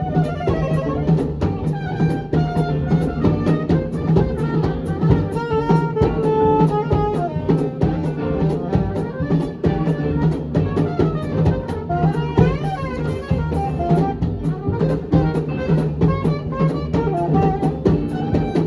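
Live swing band playing an instrumental passage: drum kit keeping a steady beat under horn lines that sound like saxophone and brass.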